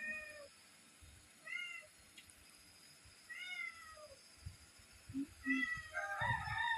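A cat meowing repeatedly: several short meows that fall in pitch, about one every couple of seconds, then a longer, louder call near the end.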